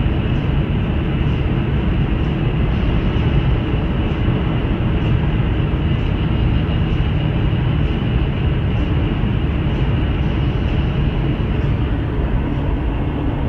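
Steady road and tyre noise with a low rumble inside a moving car (the Toyota Prius used for the road trip), running evenly without gusts.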